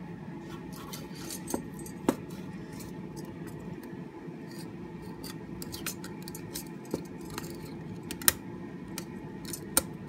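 Metal handcuffs clicking and rattling as a cuff is ratcheted shut around a wrist: scattered sharp clicks and chain clinks, the sharpest about two seconds in and at about eight seconds, over a steady low hum.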